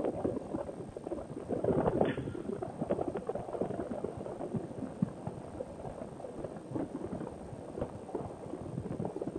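Wind buffeting the microphone in flight, an uneven crackling rush with no engine running: the paramotor trike is gliding engine-out.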